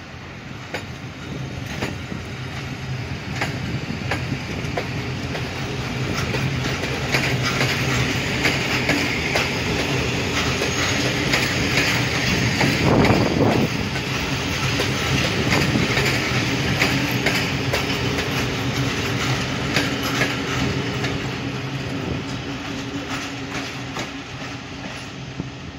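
Passenger train rolling slowly through the station tracks, its wheels clicking over rail joints and points over a steady running rumble and low hum. It grows louder toward the middle, then fades.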